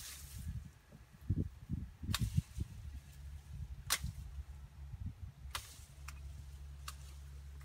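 Sharp snaps of woody branches and stems being cleared by hand, five of them a second or two apart, with a few dull thuds in the first half.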